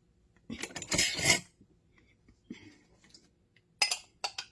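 A spoon scraping and clinking against a jar and a mixing bowl as sweet relish is spooned in: a longer scraping run about half a second in, then a few sharp clinks near the end.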